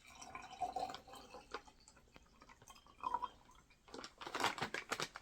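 Drink mixed with water being poured out of an MRE beverage pouch, splashing and dripping, with a louder spell of splashing near the end.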